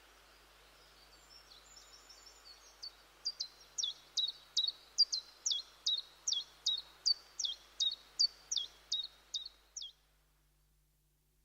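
Common chiffchaff singing: a few quiet notes, then a long run of sharp, downward-sliding 'chiff-chaff' notes at about two and a half a second, over a steady background hiss. The song and the hiss stop about ten seconds in.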